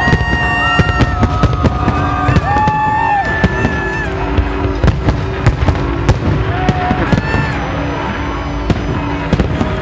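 Fireworks bursting in quick, irregular succession, a dense run of sharp bangs and crackles.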